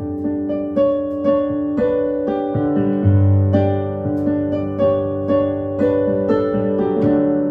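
Instrumental music: sustained keyboard-like chords with new notes struck about every half second over a low bass note.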